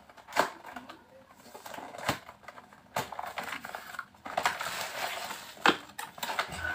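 Cardboard box opened by hand, its flaps pulled open and the inner cardboard packing slid out. It rustles and scrapes, with several sharp snaps along the way.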